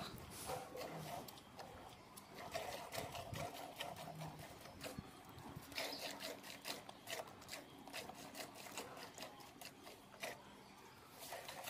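Milk squirting from a cow's teats into a steel bucket during hand-milking: a quick, uneven run of short, faint strokes.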